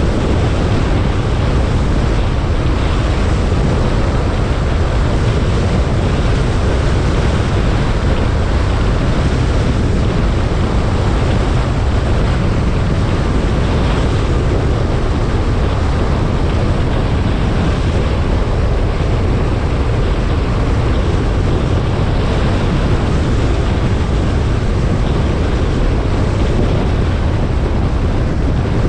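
Steady rush of wind and road noise from a car driving at speed, with a low rumble of wind buffeting the microphone.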